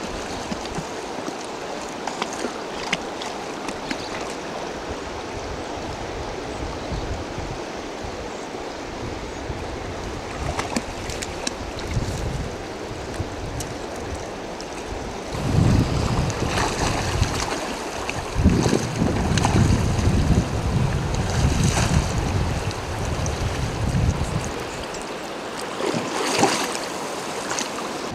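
Steady rush of river water. About halfway through, heavier, uneven low rumbling comes in for several seconds, and a few sharp clicks or splashes stand out.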